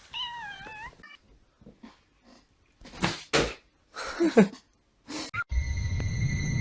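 A pet's wavering cry for about a second, followed by scattered short, scuffling sounds and a brief falling call around four seconds in. Near the end a steady hum with high, unchanging whining tones takes over.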